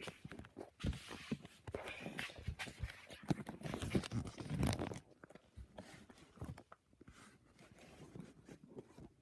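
Handling noise from a phone camera being moved and set in place: rustling, scraping and knocks, busy for the first five seconds, then only a few scattered clicks.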